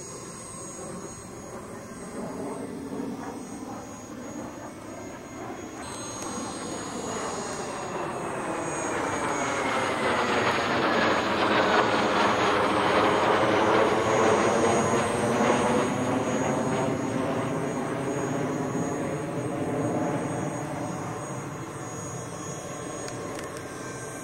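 Jet engines of a formation of Kawasaki T-4 trainers flying past overhead. The sound grows louder to a peak about halfway through, with a whine that falls in pitch as they pass, then fades slowly.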